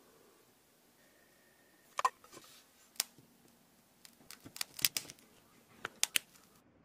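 A metal needle picks and scrapes at a disc of hardened dalgona sugar candy along its pressed star outline, making short crisp clicks and ticks. There are single clicks about two and three seconds in, then a quick cluster of them between about four and six seconds in.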